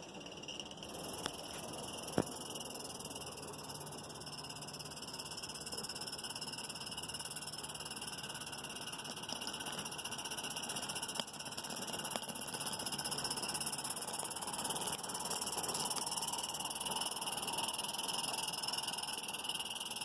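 A chorus of frogs calling steadily, with the small Regner Konrad live-steam garden locomotive and its log cars running faintly underneath, a little louder in the second half as the train comes near. A single sharp click about two seconds in.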